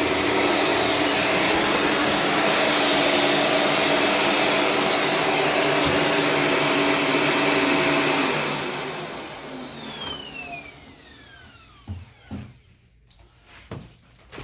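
Shark Stratos upright vacuum cleaner running steadily, then switched off about eight seconds in, its motor whine falling in pitch as it spins down. A few short knocks follow near the end.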